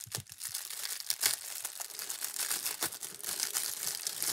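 Clear plastic bag crinkling and crackling steadily as it is worked open and the doll clothes are pulled out of it.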